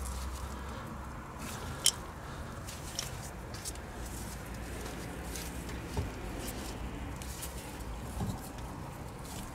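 Gloved hands working a new rubber CV boot onto the outer joint of a driveshaft: faint rubbing and handling noise with a few sharp clicks, the sharpest about two seconds in, and a dull knock about six seconds in.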